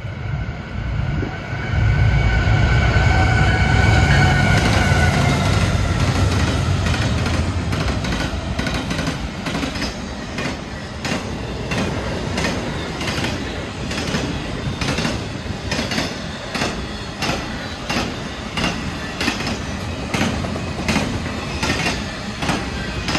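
Norfolk Southern intermodal freight train passing at speed. A deep diesel rumble from the lead locomotives swells about two seconds in, with a high whine over it, and fades by about eight seconds. After that the wheels of the trailer-loaded flatcars clack steadily over rail joints, about twice a second.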